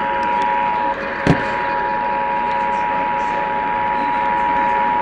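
Emergency Alert System attention signal, the steady two-tone 853 and 960 Hz alarm, played as part of a Required Monthly Test. It breaks off briefly with a sharp click just after a second in, then carries on steadily.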